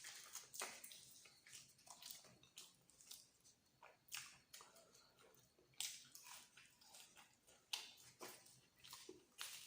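Close-up chewing and biting of luchi with egg masala: irregular wet mouth clicks and smacks, a few a second, with a few louder ones about 6 and 8 seconds in.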